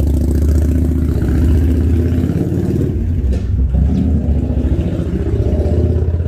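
Harley-Davidson Sportster Forty-Eight Special's air-cooled V-twin through Khrome Werks Tapered 3 mufflers, running loud with a deep pulsing exhaust beat as the bike pulls away.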